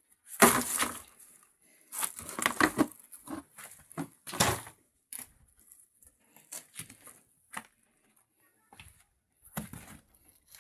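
Irregular rustling and scraping as things are moved about and tidied: several loud bursts in the first half, sparser and fainter ones after about five seconds.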